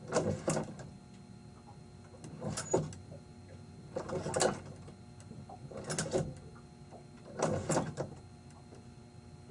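Yacht Controller YAMAS mechanical actuator moving the boat's shift linkage levers under remote control: five short mechanical movements of about half a second each, roughly every one and a half to two seconds.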